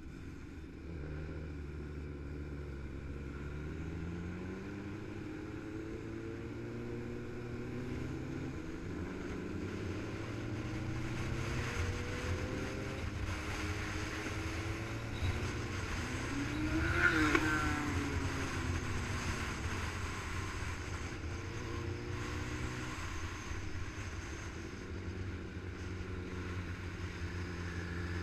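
Motorcycle engine running on the move, its pitch rising and stepping with throttle and gear changes. About seventeen seconds in, a vehicle passes close by, its pitch falling as it goes; this is the loudest moment.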